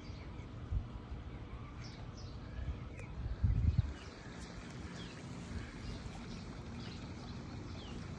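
Low, uneven wind rumble on a phone microphone, with a louder gust or handling bump about three and a half seconds in. Faint short high bird chirps come and go over it.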